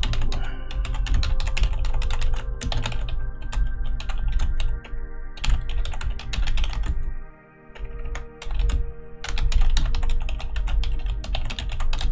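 Typing on a computer keyboard: fast runs of keystrokes, with a short pause a little past halfway.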